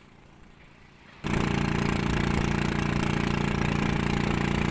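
A faint hush for about a second, then a small boat's engine cuts in suddenly at full level and runs steadily.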